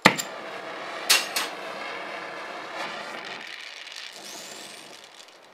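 Brass gas torch lighting with a sudden pop, then a steady hissing flame, with two sharp pops about a second in. The flame grows quieter after about three and a half seconds. It is heating chef-knife tangs a second time to anneal them.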